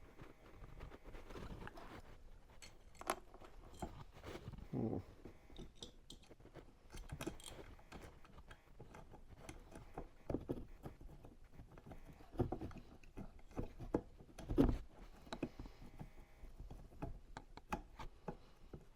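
Scattered small clicks, taps and scrapes of hand work on a metal printer frame: screws and an Allen wrench being fitted and turned, with a few louder knocks, the loudest near the end.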